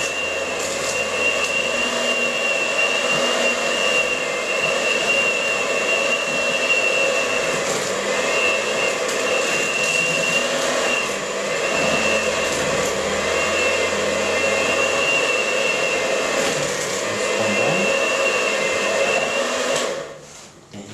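Electric mixer running steadily with a high motor whine, beating dry flour and cocoa into a cake batter, then switched off near the end.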